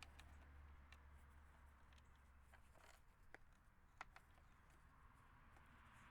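Near silence: a steady low hum with a few faint small clicks, the sharpest about four seconds in.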